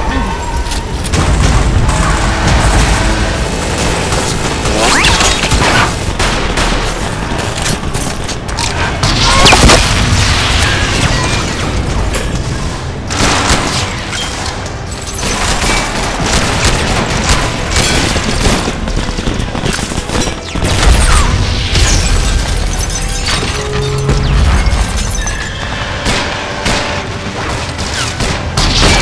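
Action-film shootout sound design: rapid gunfire volleys and deep explosion booms layered over dramatic music. The heaviest blasts come about ten seconds in and again about twenty-one seconds in.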